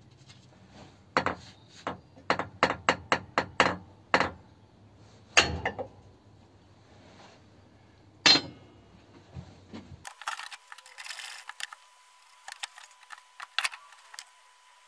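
Metal tools and parts clinking against a Ford 100E front suspension strut held in a steel vise as it is stripped. There is a quick run of light metallic clicks, about three a second, then two louder clanks about three seconds apart. After about ten seconds the sound turns thin, with fainter high clicks over a faint steady whine.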